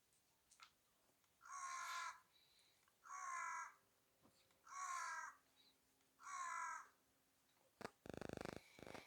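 A crow cawing four times, evenly spaced about a second and a half apart. A brief, rapid rattling burst follows near the end.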